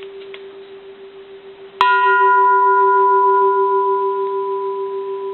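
Japanese bronze Buddhist temple bell (c. 1930s) struck once with its striker about two seconds in, ringing on with several clear tones that slowly fade. A low steady hum from the bell's earlier ringing sounds throughout.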